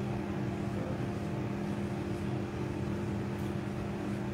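Steady low machine hum in a room, even and unchanging, with two low tones held throughout.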